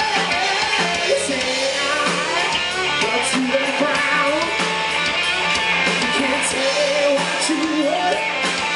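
Live rock band playing: a singer over electric guitars and a drum kit.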